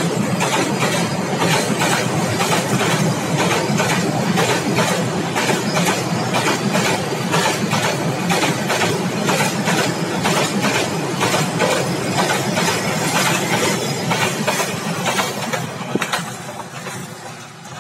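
Long freight train of tank wagons passing close at speed: loud steady wheel-on-rail noise with a rapid clickety-clack of wheels over the rail joints. It fades away near the end as the last car goes by.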